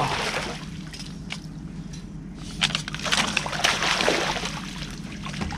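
Water splashing and sloshing as a hooked carp thrashes at the surface. There are two bouts: a short one at the start and a longer one about two and a half seconds in.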